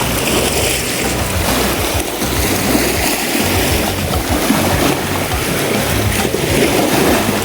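Background music over a steady rush of water noise.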